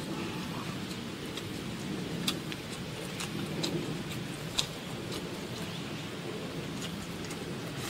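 Steady rain falling, with a few sharp clicks about two, three and a half and four and a half seconds in.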